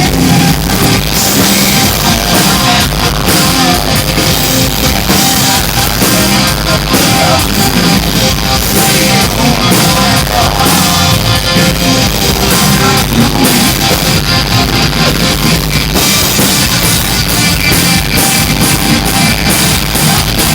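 Live rock band playing loudly: drum kit, electric guitar and singing.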